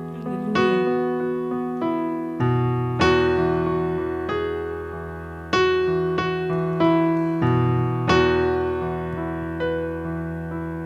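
Keyboard, in a piano or electric-piano sound, playing slow sustained chords as an instrumental worship interlude. Each chord is struck and left to ring out, with a new one every second or two and the bass note changing a couple of times.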